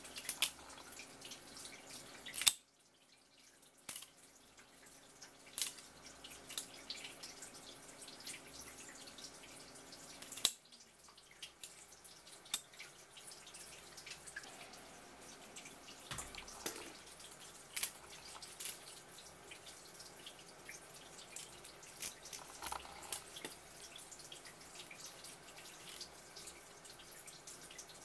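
Kitchen tap running in a thin stream onto a wooden cutting board, with scattered sharp clicks and snips of kitchen shears cutting through swimming crab shell; the two loudest snaps come about two and a half and ten and a half seconds in.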